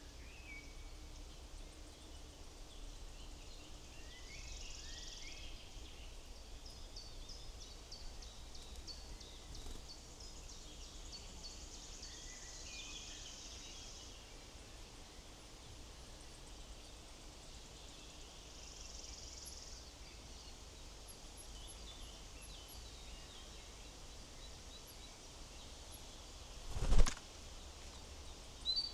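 Small wild songbirds chirping and trilling at a woodland feeder, in short scattered calls over a faint low outdoor rumble. Near the end there is one loud sharp knock.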